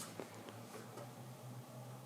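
Faint light ticks of a carving knife's tip nicking into cherry wood while cutting kolrosing lines, a few in the first second, over a low steady hum.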